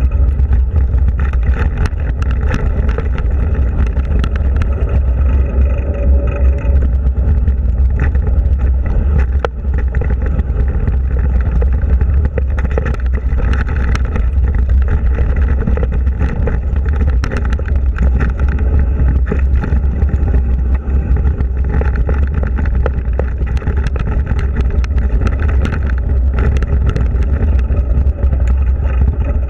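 Mountain bike riding over a rough dirt trail, picked up by a camera mounted on the bike: a steady low rumble of wind and trail vibration on the microphone, with frequent clicks and rattles as the bike goes over bumps and gravel.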